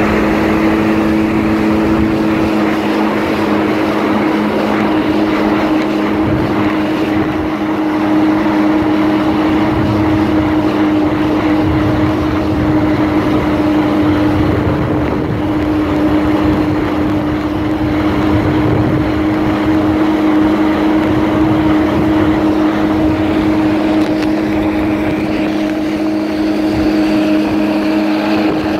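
Kawasaki Jet Ski's engine running at a steady cruising speed, a held drone that neither rises nor falls, over the rush of water under the hull.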